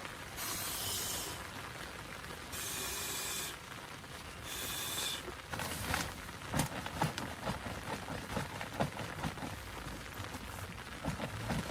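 Steady rain falling, with three short hissing bursts in the first half and then a run of irregular taps and knocks.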